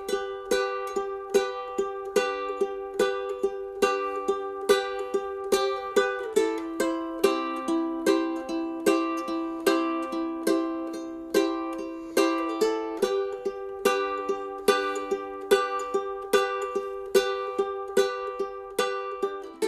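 Background music played on a plucked string instrument in a steady rhythm of sharp, quickly fading notes.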